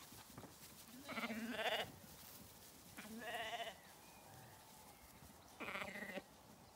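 Zwartbles lambs bleating three times, each call lasting about half a second to a second, with a wavering pitch.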